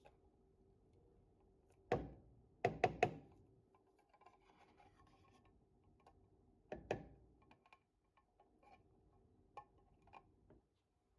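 Sharp knocks and clinks of kitchen items handled on a counter: one about two seconds in, a quick run of three a second later, another near seven seconds, then a few fainter taps.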